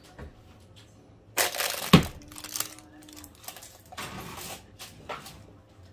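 Oven door and rack clattering as a lidded enameled cast-iron Dutch oven is put back into the oven, with a sharp clunk about two seconds in. There is more clatter around four seconds in.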